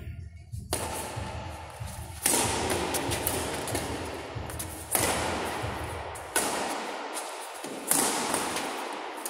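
Badminton rackets striking a shuttlecock back and forth in a doubles rally: about five sharp smacks, one every one and a half to three seconds, each with a lingering echo.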